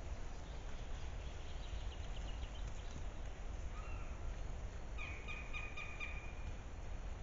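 A herd of red deer hinds walking through the forest, with scattered light hoof and twig sounds over a steady low rumble. A short high call comes about four seconds in, and a longer one about five seconds in.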